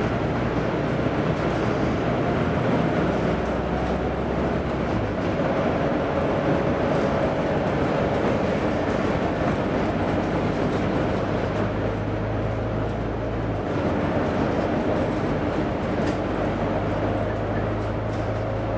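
Volvo B9TL double-decker bus's six-cylinder diesel engine running as the bus drives along, heard from inside the cabin with road rumble. The engine note changes about five seconds in and again about two-thirds of the way through.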